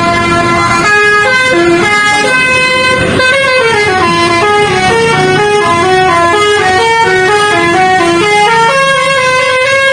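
Indonesian bus 'telolet basuri' multi-tone musical horn playing a loud, continuous melody of short held notes that step up and down in pitch.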